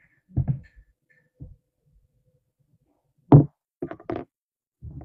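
Scattered knocks and clatters of kitchen handling: a fork, a glass olive jar and a plastic salad container knocking together. There are about half a dozen short hits, the loudest a little past three seconds in and another near the end.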